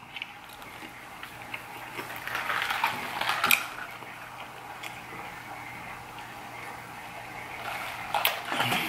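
Close-miked eating and drinking sounds: a fork picking at macaroni on a plate, then a drink sucked up through a straw, with scattered clicks of cutlery and cup near the end.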